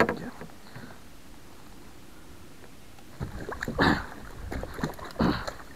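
A musky thrashing in a landing net at the side of a kayak, splashing the water in several sudden bursts from about three seconds in, the loudest near four seconds. Before that only a faint steady hiss.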